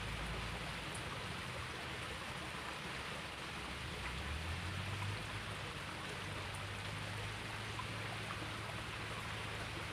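Small creek's running water, a steady even rush.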